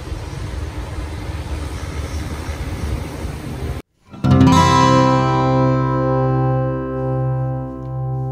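Steady noise of a multirotor spraying drone flying overhead. It cuts off abruptly about four seconds in, and after a brief silence louder music with acoustic guitar and sustained chords begins.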